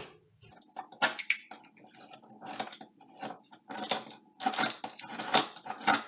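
A knife scraping and cutting away the edge of a drywall opening in a dozen or so short, irregular strokes, trimming the hole in the tough fiberglass-faced wall sheet so a metal electrical box will fit.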